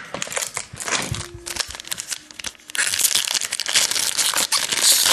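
Foil wrapper of a 2007 Razor Poker trading-card pack being handled and torn open: dense crinkling and tearing that grows louder and fuller about three seconds in.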